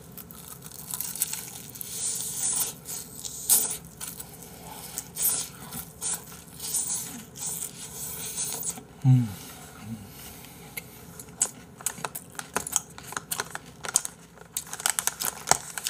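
Crunching bites into a crispy fried chicken thigh, the batter crackling. About nine seconds in comes a short low hum from the eater, then fast wet chewing and smacking clicks.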